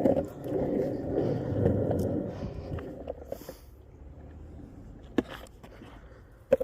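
Skateboard wheels rolling over pavement, a rough rumble that dies away about three seconds in. Two sharp clicks follow near the end.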